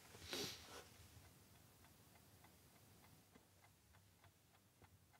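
Near silence with the faint, regular ticking of a clock, a couple of ticks a second. There is a brief soft hiss just after the start.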